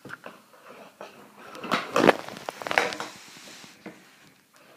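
Eating noises: wet smacking and biting clicks in short clusters, with brief pauses between them.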